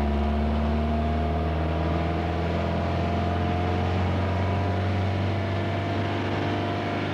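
Speedboat engine running hard at a steady pitch, heard from aboard the boat, as it tows a water-skier up out of the water. Rushing wind and water noise runs under it.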